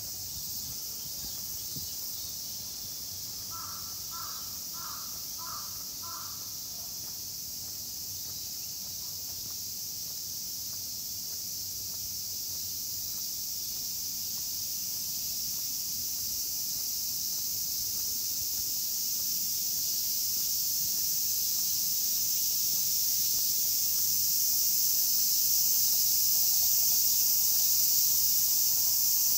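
A chorus of cicadas buzzing steadily and growing louder, with a crow cawing five times in quick succession a few seconds in.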